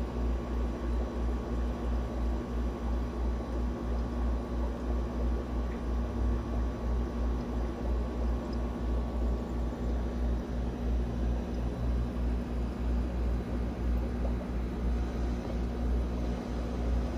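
A steady low mechanical hum with a slight regular pulse and a faint hiss, unchanging throughout.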